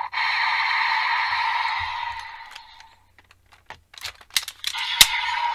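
Electronic sound effect from a toy transformation belt's small speaker, fading out over about three seconds, followed by a run of sharp plastic clicks as the toy buckle and belt are handled, the loudest about five seconds in.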